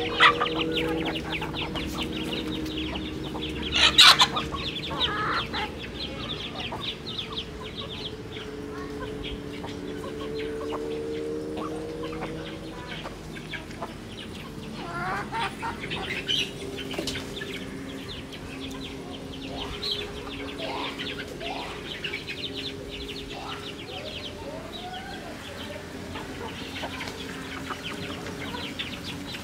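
Chickens foraging in a flock: hens clucking with short squawks, the loudest about four seconds in. A steady low hum runs underneath.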